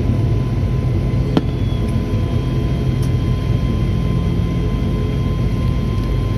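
Cabin noise of a Japan Air Commuter turboprop airliner on the ground after landing: a steady engine hum with thin high whines running through it. A single sharp click sounds about a second and a half in.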